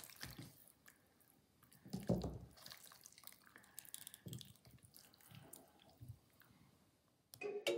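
Faint wet, squishy sounds of a raw duck carcass being cut and pulled apart by hand on a wooden board, with one louder thud about two seconds in. Music starts just before the end.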